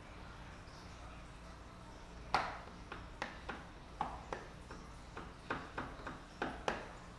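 Plastic squeegee squeaking in short strokes over wet paint protection film on a headlight lens: about a dozen quick, sharp squeaks at an uneven pace, starting about two seconds in, the first one the loudest.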